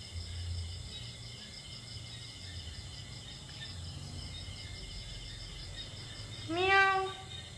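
Kitten meowing once near the end: a short call that rises in pitch at the start and then holds.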